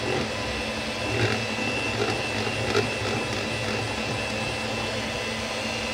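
Moulinex electric hand mixer running steadily with a high whine, its beaters whisking melted chocolate into semi-whipped cream in a plastic bowl.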